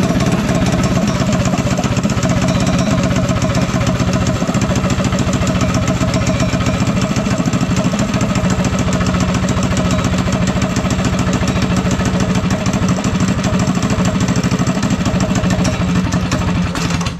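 Small single-cylinder go-kart engine with a 308 drag-racing cam, running steadily through an open header pipe, then cutting off abruptly near the end.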